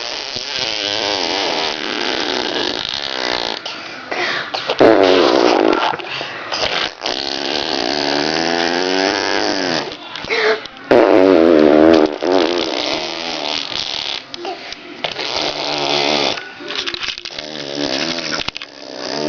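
A small child blowing raspberries, buzzing her lips to make fart noises in long, wobbling runs with short breaks, loudest about five and about eleven seconds in.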